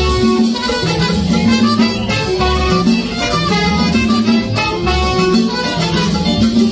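Live band with trombone, trumpet and saxophone playing held notes over a bass line and drum kit, an upbeat groove with a repeating bass figure.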